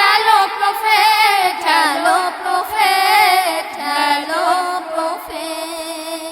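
Devotional naat singing: a voice carries a wavering, ornamented melody with no clear words over a steady held drone, and fades out near the end.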